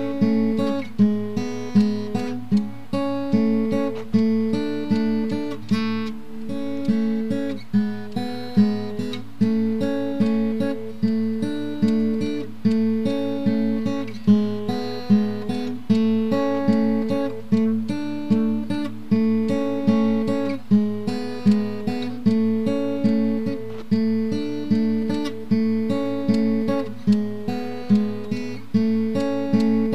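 Background music: acoustic guitar picked and strummed in a steady, even rhythm.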